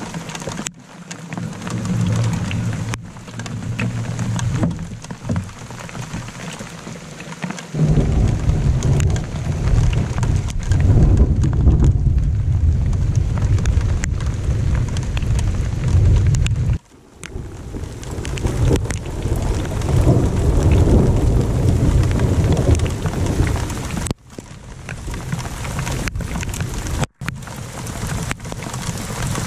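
Heavy rain on the lake during a thunderstorm, with rolling thunder. A long, loud low rumble starts about eight seconds in and comes again later.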